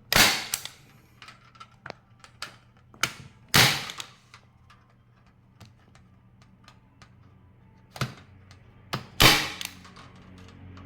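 Unitacker Light Force staple gun firing heavy T50-type staples to fasten steel mesh: three sharp snaps, near the start, about three and a half seconds in and about nine seconds in, the last the loudest, with a few lighter clicks between.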